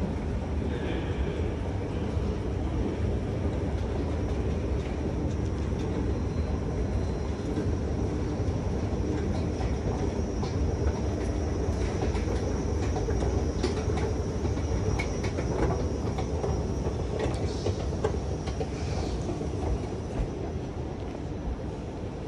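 Metro train running in the station: a steady low rumble, with a thin high whine for several seconds midway.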